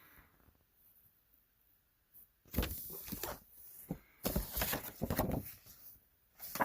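Cardboard and packaging being handled while unboxing: a quiet start, then several bursts of rustling and knocking from about two and a half seconds in.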